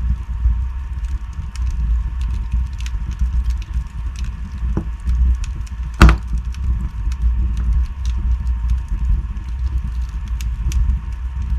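Wood fire burning in a fireplace: a steady low rumble of flames with scattered small crackles of burning logs, and one loud pop about six seconds in.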